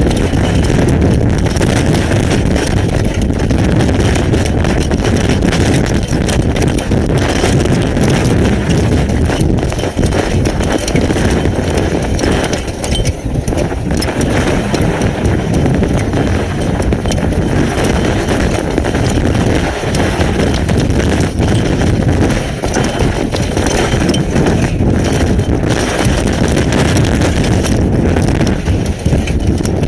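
Severe thunderstorm winds buffeting a webcam's outdoor microphone, with wind-driven hail and rain pelting the camera housing: a loud, steady rush of low wind noise peppered with countless small rapid impacts.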